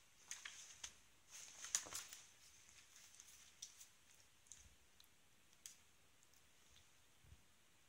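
Faint rustling and light clicks of a kitten pouncing on a feather wand toy and clawing at the bed sheet and wooden bed frame, busiest in the first two seconds, then a few scattered ticks.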